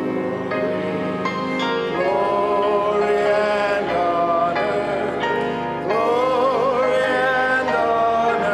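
Church music: a hymn sung to instrumental accompaniment, with notes held and wavering in pitch.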